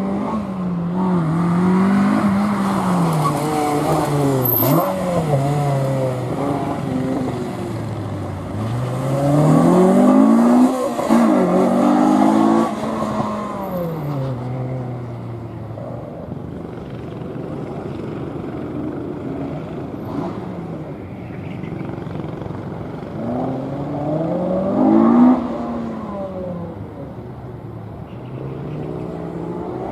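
A car's engine revving hard through a gymkhana course, repeatedly rising in pitch under acceleration and falling back as the driver lifts and brakes. It is loudest about ten seconds in as the car comes closest, with another brief surge about 25 seconds in.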